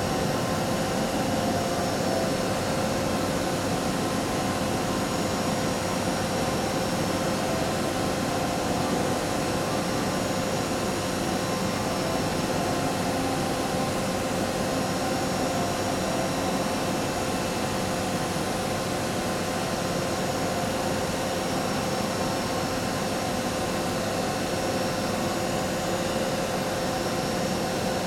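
Doosan VC630 vertical machining centre milling a part: steady spindle and cutting noise with a constant whine over it, unchanging throughout.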